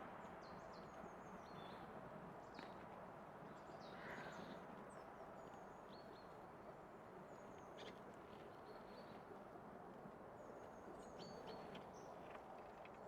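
Faint outdoor ambience with small birds giving short, high chirps scattered throughout, over a steady background hiss.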